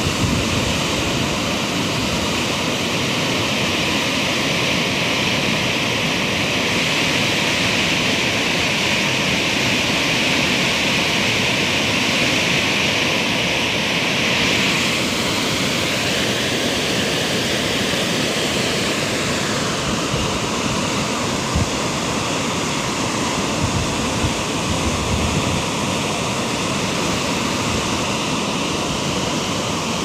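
Whitewater rapids of a fast mountain river rushing over and around boulders: a loud, steady rush of water.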